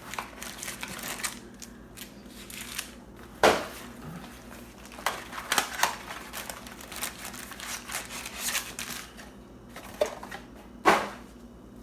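Trading cards and their foil and cardboard packaging being handled on a table: light rustling and scattered clicks, with two sharp louder snaps, one a few seconds in and one near the end.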